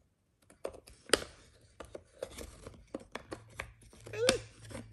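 Wooden pieces of a peg puzzle clicking and knocking against the wooden puzzle board as a small child handles them and fits them into their slots: a scatter of light taps and clacks. A short voice sound with a sliding pitch comes near the end.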